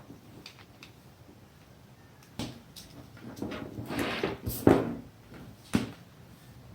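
Handling noises while wiring control components: several sharp clicks and short rustles as wires and parts are moved and fitted, the loudest cluster about four to five seconds in.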